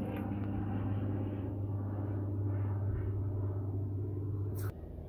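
A steady, low, engine-like hum with a few even tones, cutting off suddenly near the end.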